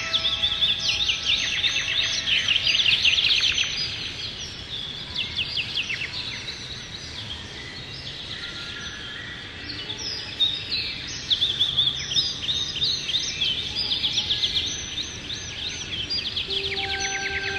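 Songbirds singing in a dense chorus of quick chirps and trills, busiest in the first few seconds and again around the middle, over a steady soft hiss. Held notes of calm ambient music sound underneath, with new notes coming in near the end.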